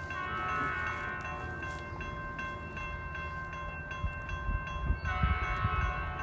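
A distant approaching train's horn sounds twice, a long blast at the start and another about five seconds in, over a grade-crossing bell ringing steadily at about two strikes a second. A low rumble runs underneath, with wind buffeting the microphone around the middle.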